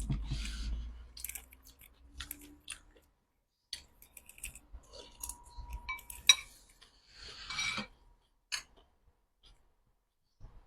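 Eating sounds: an eating utensil clinking and scraping against a dish in scattered short clicks, the sharpest about six seconds in, with short noisy stretches of handling and mouth noise.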